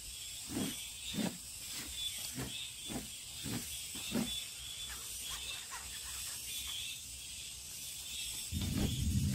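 Hand-shaken mesh sieve of potato starch: about seven soft rhythmic knocks, roughly one every half second, in the first four seconds, then fainter ones. Near the end a louder low rumbling rustle starts.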